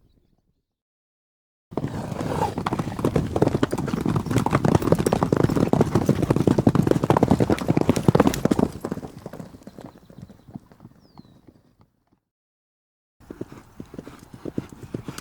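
Eight horses galloping past, a dense drumming of hoofbeats that cuts in suddenly, swells as they pass, then fades away. After a brief gap another pass of galloping hooves begins near the end.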